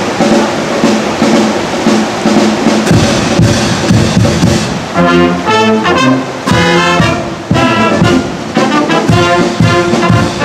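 Tyrolean brass band (wind band with tuba, trumpets and flugelhorns) playing together. A rhythmic low accompaniment comes first, and the higher brass melody comes in clearly about five seconds in.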